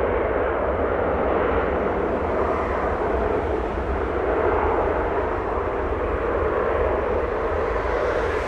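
Jet airliner engine noise, a steady rushing sound with a deep rumble underneath.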